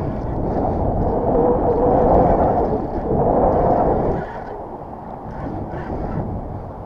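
Strong wind buffeting the microphone, a dense low rumble that swells about a second in and eases off after about four seconds.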